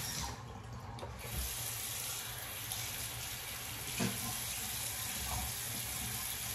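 Water running from a bathroom sink tap: a steady hiss that thins out for about a second near the start.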